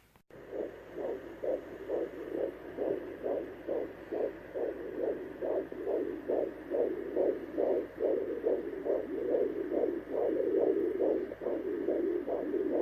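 Fetal heartbeat through a handheld fetal Doppler's speaker: a quick, even pulsing of about two and a half beats a second, starting just after the beginning.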